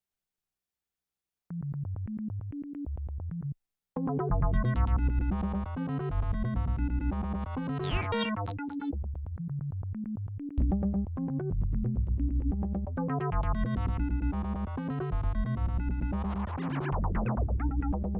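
Electronic synthesizer music starting from silence: a sequence of short, repeating bass notes begins about a second and a half in, breaks off briefly, then comes back fuller with higher notes layered on. A short sweeping whoosh cuts through around the middle, and another comes near the end.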